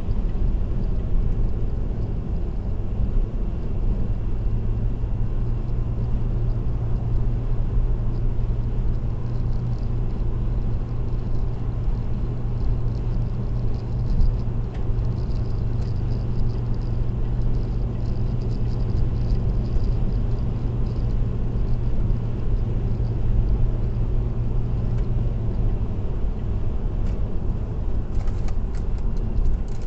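A car cruising at expressway speed: a steady drone of tyres and engine with a constant low hum, heard from inside the car.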